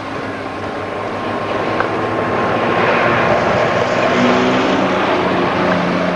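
Rally cars, among them an Opel Corsa, racing on a sand track: engines running hard under a broad rush of noise that grows gradually louder, with a steady engine tone coming in about four seconds in.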